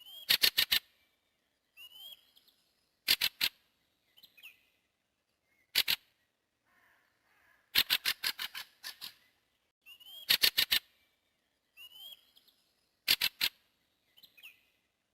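Bird calls: short rising notes alternating with quick runs of four to six sharp, clicking chatter notes, repeated six times with silence between.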